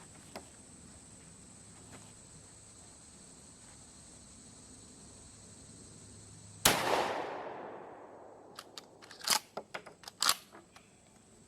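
A single 12-gauge shot from a Benelli Nova Tactical pump shotgun about two thirds of the way in, ringing out and fading over a second or so. A couple of seconds later comes a quick run of metallic clacks, typical of the pump slide being worked to eject the spent hull and chamber the next round.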